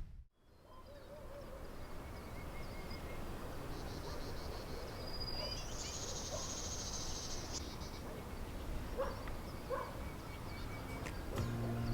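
Quiet outdoor ambience: a steady low hiss and rumble with faint scattered chirps and a short, high buzzing trill about six seconds in.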